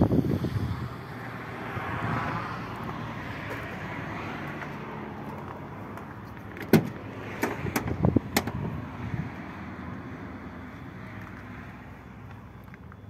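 A vehicle engine running steadily, with a few sharp knocks or clicks a little over halfway through.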